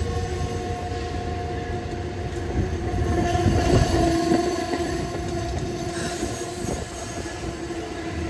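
Amtrak passenger coaches rolling slowly past as the train brakes for its station stop: a steady metallic squeal from the braking wheels over the rumble of the cars, with scattered clicks as the wheels cross rail joints.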